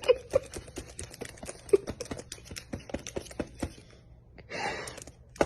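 Rapid, irregular light tapping that slows and fades over about four seconds, followed by a short rustle and one sharp click near the end.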